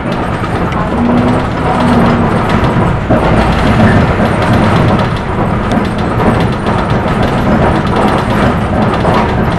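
City bus engine running and road noise heard from inside the bus as it drives along a city street, a steady rumble with a faint humming engine tone.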